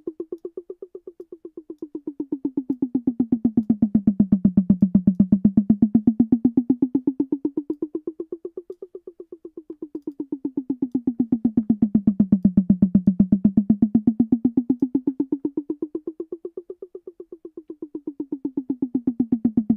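A tom drum sample repeating in a fast, even roll while pitch, pan and volume envelopes move it. Its pitch rises and falls in a slow cycle about every eight seconds, and it grows quieter as it rises, so the tom seems to circle around and drift further away and back.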